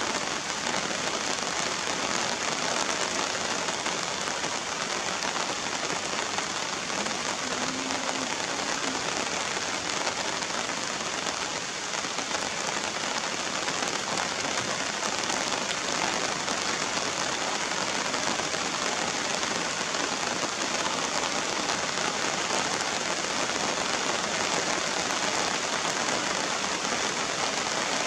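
Steady rain falling and splashing on wet, puddled ground.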